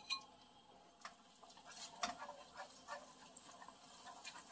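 Wooden chopsticks tapping and scraping lightly on a nonstick frying pan while stirring beaten eggs into scrambled eggs: faint, irregular clicks, with a sharper click right at the start.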